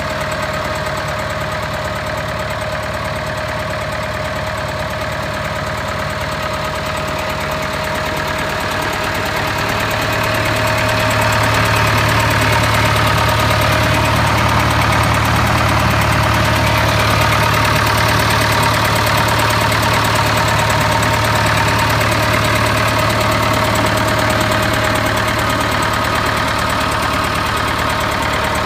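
David Brown 990 tractor's four-cylinder diesel engine idling steadily, growing a little louder about ten seconds in.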